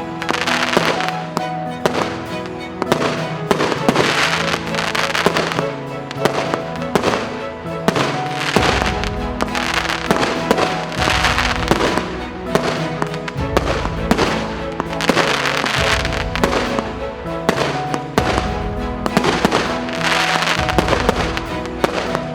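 A 238-shot consumer fireworks cake of 1.2-inch and 2-inch calibre firing a continuous barrage of shots and crackling bursts. Background music with a bass line that comes in about eight seconds in plays along with the shots.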